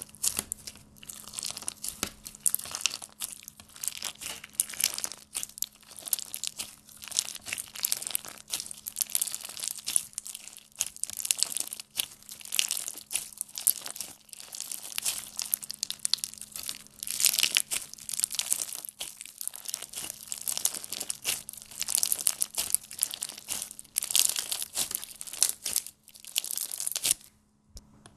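Slime being squeezed and pressed by hand, giving a dense, irregular stream of small crackles and pops over a faint steady hum. The crackling stops briefly near the end.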